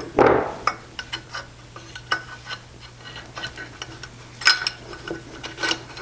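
Light metallic clinks and taps of a nut and muffler-clamp hardware being fitted against a steel mounting plate on a bicycle frame. The clicks are irregular and ring briefly, with a louder clatter just after the start and another about four and a half seconds in.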